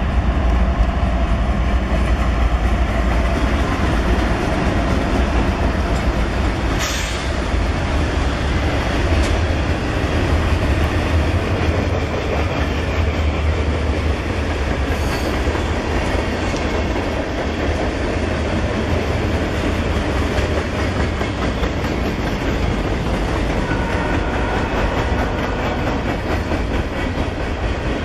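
Diesel freight train passing close by: the locomotives' engines rumble past, then the freight cars roll by on steel wheels with a steady rolling clatter. There is a short, sharp noise about seven seconds in.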